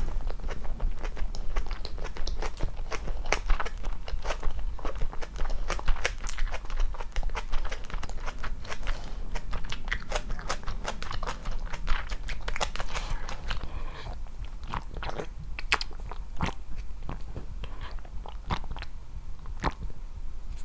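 Close-miked eating: chewing and biting food, with a dense run of small sharp mouth clicks and crunches, a little sparser in the last few seconds.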